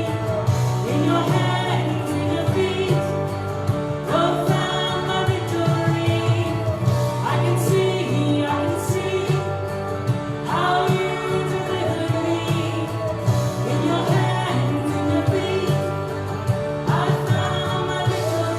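Contemporary Christian worship song with singing over sustained band chords, a new phrase starting every few seconds.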